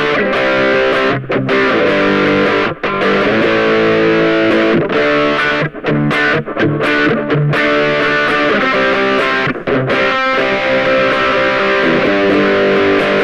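Ibanez GAX30 electric guitar played through a distortion pedal: loud chords rung out and held, cut off by brief mutes several times.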